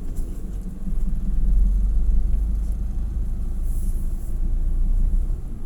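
Vehicle in motion: a steady low engine and road rumble.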